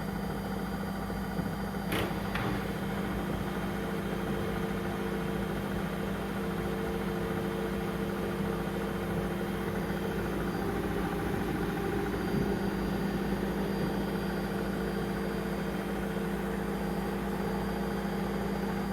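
Brandt washing machine running with a steady motor hum, and a single sharp click about two seconds in.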